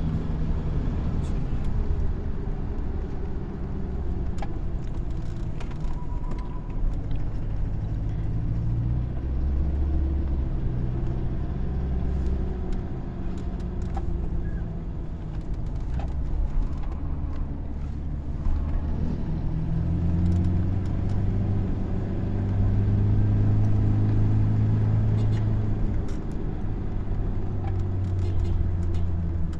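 Toyota Hilux's 1GD-FTV 2.8-litre four-cylinder turbodiesel running with injector number 4 freshly refitted, its engine note rising and falling.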